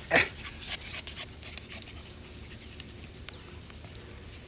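A Pembroke Welsh corgi puppy gives one loud, sharp yap just after the start, followed by a few quieter short yaps within the next second.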